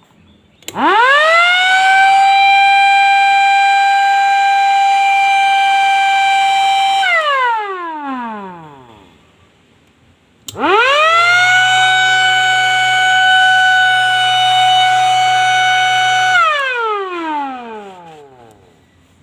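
Two MS-290 electric sirens sounded one after the other, each starting with a click as it is switched on, winding up quickly to a steady high wail, holding for about six seconds, then falling away slowly in pitch after it is switched off. Both are running normally.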